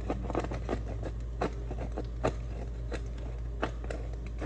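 Razor blade shaving the cut edge of a plastic dirt bike panel: a run of short, irregular scrapes and clicks, a few a second, over a steady low hum.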